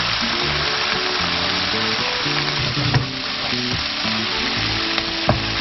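Onions and chunks of tailor fish sizzling steadily in a hot non-stick frying pan while they are stirred with a spatula, with a couple of sharp taps of the spatula on the pan.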